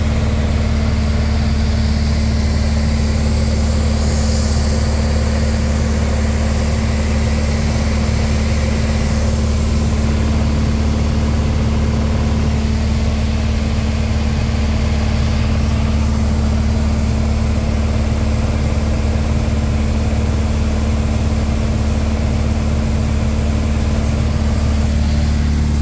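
Piper light aircraft's engine and propeller droning steadily in flight, heard from inside the cockpit as an unchanging low drone.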